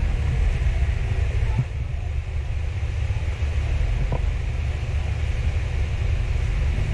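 Steady low background rumble with a faint hiss, and two faint light clicks, one about a second and a half in and one about four seconds in.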